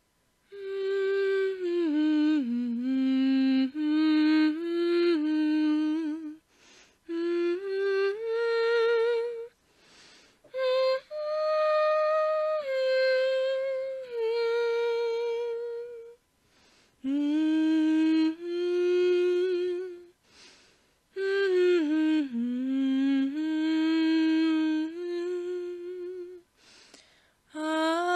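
A woman humming a slow, wandering tune in phrases of a few seconds, with held notes and short pauses between phrases.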